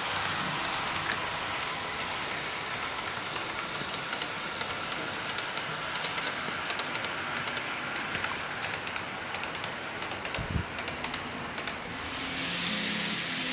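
An HO scale model freight train rolling along the track: a steady whir from the locomotive and wagons, with rapid light clicking as the wheels pass over rail joints from about halfway through. Near the end the sound changes and a steady low hum comes in.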